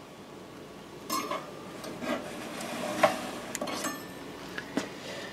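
A metal baking tray scraping along a toaster oven's wire rack as it is slid out, with several light clinks and knocks.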